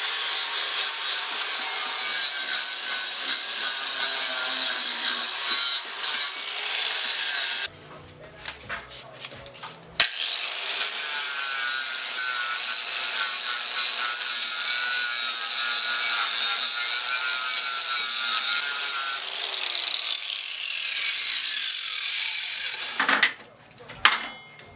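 A power grinder working scrap steel, its pitch wavering as the load changes. It stops about 8 seconds in, starts again about 10 seconds in, and winds down with a falling whine near the end.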